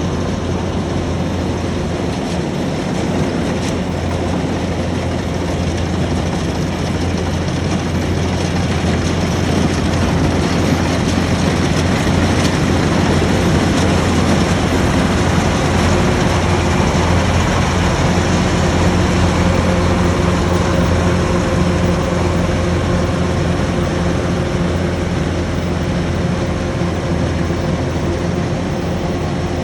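Rice combine harvester running steadily with a continuous engine drone, a little louder around the middle.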